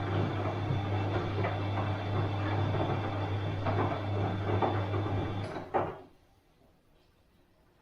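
Bosch washing machine running: a steady motor hum under the irregular churn of the drum. About five and a half seconds in the hum stops with a click, and near silence follows.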